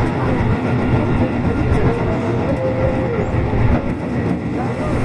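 Tobu 8000 series electric commuter train running, with a steady rumble of wheels on rail and a faint held tone rising above it in the middle.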